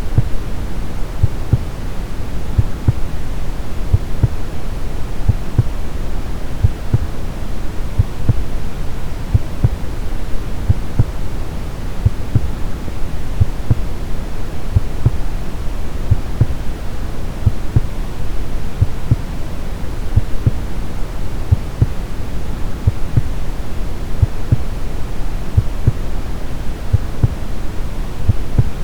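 Brown noise, a deep steady hiss weighted to the low end, with a heartbeat sound over it: regular low thumps that keep an even beat throughout.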